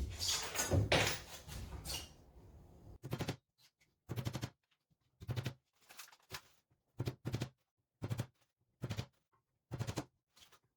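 Nails being driven into the timber sides of a wooden Commercial beehive brood chamber: a regular series of sharp, short strikes, about one cluster a second, after a couple of seconds of wood being shifted into place.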